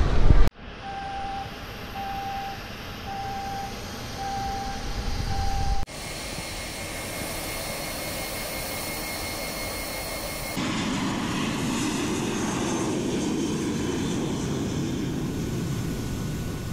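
Jet airliner engines across an airport apron: a steady high engine whine while the plane is pushed back, then, about ten seconds in, a louder low rushing rumble as a jet takes off.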